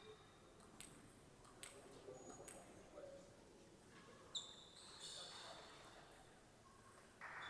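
Near silence broken by a few faint, sharp ticks of a table tennis ball bouncing, the clearest about halfway through.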